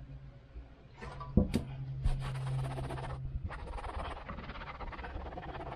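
Cloth towel rubbing back and forth over the RV roof in two long wiping spells, cleaning the surface before the antenna is stuck down. A few sharp knocks come between one and two seconds in.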